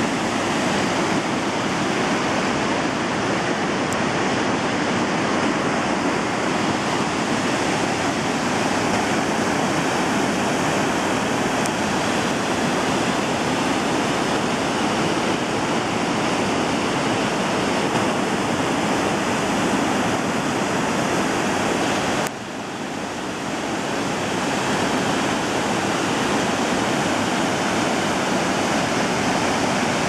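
A waterfall and the rapids below it: a heavy, steady rush of falling water. About two-thirds of the way through the level drops suddenly and builds back over a few seconds.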